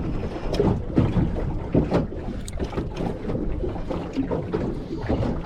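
Water lapping and slapping irregularly against the hull of a small fishing boat, with wind buffeting the microphone.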